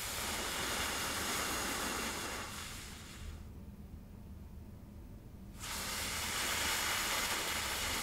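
Two long breaths blown out hard through pursed lips, each a hiss of about three seconds; the second begins about five and a half seconds in.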